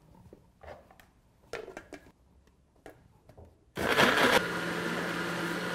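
Electric countertop blender switched on about two-thirds of the way in, its motor running steadily as it purées raw carrot chunks. A few light knocks come before it starts.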